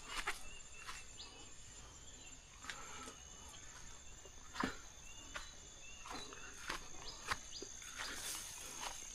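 Rice-field ambience: insects keep up a steady high-pitched drone while small birds give short chirping calls every second or so. A few sharp clicks, like footsteps or knocks, stand out, the loudest about halfway through.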